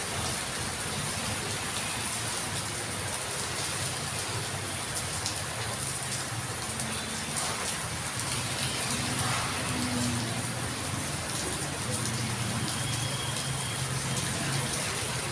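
Heavy rain falling steadily onto a wet street, an even, unbroken hiss.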